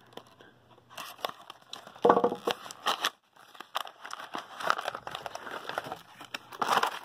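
Hands handling a cardboard flashlight box and its clear plastic tray: irregular crinkling, rustling and small clicks as the box flap is opened and the plastic insert is drawn out, with louder handling about two seconds in and near the end.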